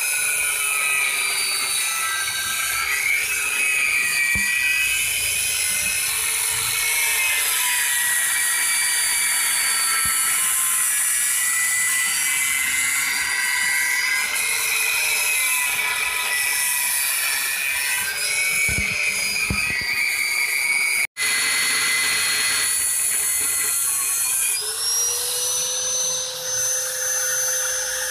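A high-speed power tool motor running with a steady whine that wavers a little in pitch as it is loaded. It cuts out for an instant about 21 seconds in, and near the end the whine rises to a higher, steadier pitch.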